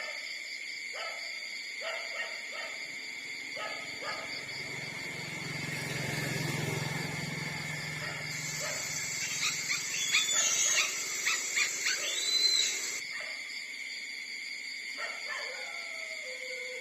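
Newborn puppies squeaking and whimpering while nursing, in short cries that get busier and louder about halfway through, over a steady high-pitched hum. A low rumble rises and fades before the busiest stretch.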